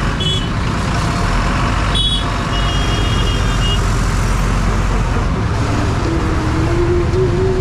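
Congested street traffic heard from a slow-moving motorcycle: motorbike and truck engines running with a steady low rumble. A few short high beeps come about two to four seconds in.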